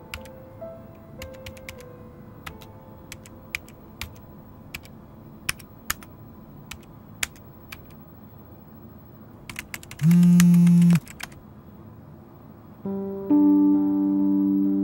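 Irregular keystrokes on a computer keyboard for about ten seconds, then a loud, steady buzz of about a second, a phone's vibration alert for an incoming text message. Soft sustained music notes come in near the end.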